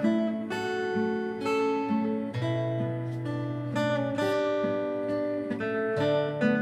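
Instrumental intro of a trot ballad: a steel-string acoustic guitar strums chords in a steady rhythm over long held bass notes.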